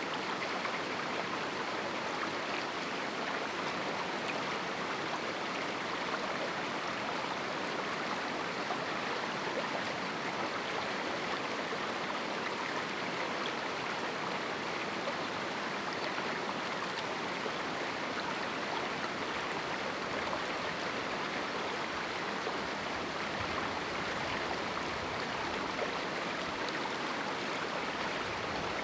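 A river flowing through a small rocky canyon: a steady, even rush of running water.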